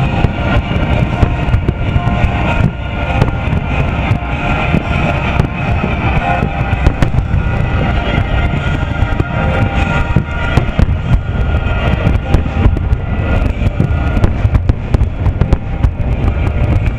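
Fireworks display: aerial shells launching and bursting in a dense run of sharp bangs, over music played along with the show.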